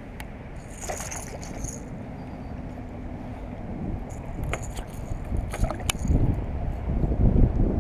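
Low rumbling wind and handling noise on a kayak, with a few sharp clicks and knocks about a second in and again around five seconds. About six seconds in the rumble grows louder and uneven as a small bass is brought to the kayak's side.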